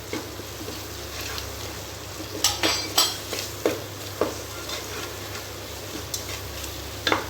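A spoon stirring onion-tomato masala with spice powders as it fries in oil and ghee in a cooking pot: a low steady sizzle, with several sharp scrapes and knocks of the spoon against the pot.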